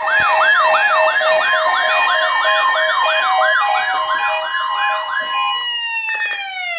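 Electronic siren alarm of a Zoneguard weather alert radio going off. It warbles up and down nearly three times a second over steady tones, then settles into one tone that begins sliding down in pitch near the end, like a siren winding down.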